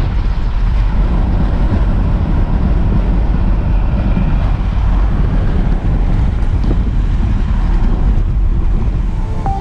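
A vehicle on the move: a loud, steady rumble of road noise, with wind buffeting the microphone.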